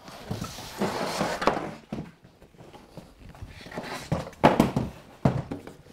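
Large wooden baseboard being shifted into place by hand: a scraping slide, then a few sharp knocks near the end as it bumps against its supports.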